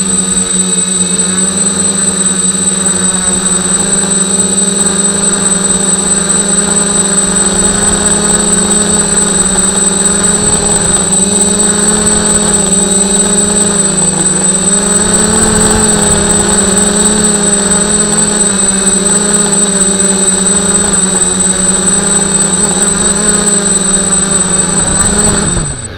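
Motor and propeller of the camera-carrying model aircraft, heard from on board: a steady hum with a high, thin whine over it. It cuts off suddenly near the end as the craft comes down in the grass.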